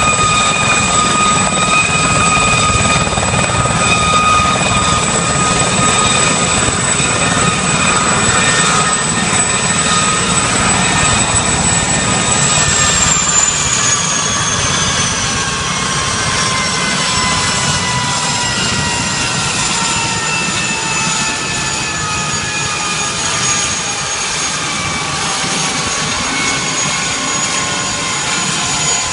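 Aérospatiale SA 341 Gazelle helicopter running on the grass, its Astazou turboshaft giving a loud high whine over the rotor's rumble. About twelve seconds in, the whine starts to fall steadily in pitch as the turbine and rotor slow down.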